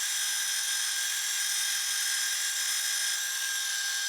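Metal lathe running with a pilot drill bit cutting into a spinning 4140 steel shaft: a steady high-pitched whine with several held tones.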